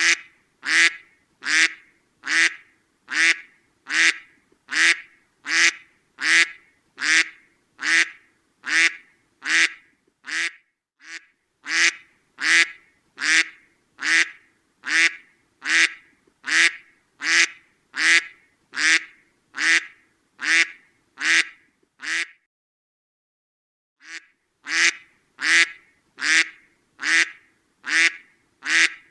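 A duck quacking over and over in single, evenly spaced quacks, a little over one a second, with a pause of about two seconds near the end.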